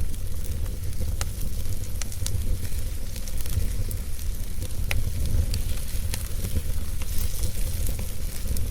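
Wood fire burning in a fireplace: irregular sharp crackles and pops from the burning logs over a steady low rumble and a soft hiss.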